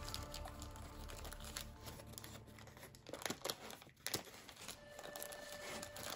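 A sheet of origami paper crinkling and rustling as it is handled, pressed and folded along its creases, with scattered small crackles.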